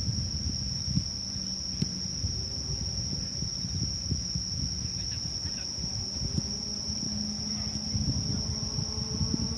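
Insects, crickets, trilling steadily on one high note, over a low rumble with scattered knocks.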